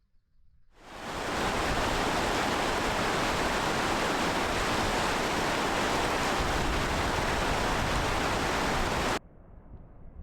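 Loud steady rush of falling whitewater, fading in about a second in and cutting off suddenly near the end.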